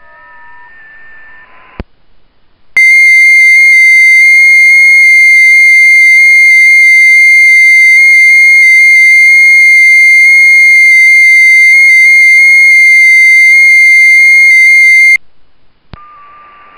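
FT8 digital-mode signal from a ham radio station's computer and transceiver: a loud steady tone near 2 kHz that starts abruptly about three seconds in, lasts about twelve seconds, and cuts off abruptly, the length of one FT8 transmission. Before and after it, the transceiver's receive audio: band hiss with several fainter overlapping FT8 tones, and a click just before the transmission.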